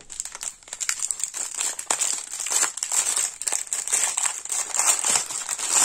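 Packaging of a diamond-painting kit's bags of resin drills crinkling and crackling as it is handled, an irregular run of rustles.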